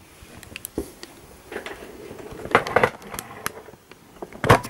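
Cables and plugs being handled at the back of a recorder: a few light plastic clicks and knocks, with the sharpest one near the end.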